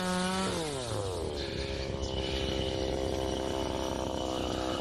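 Small engine running at high speed, then dropping to a lower, steady speed about half a second in.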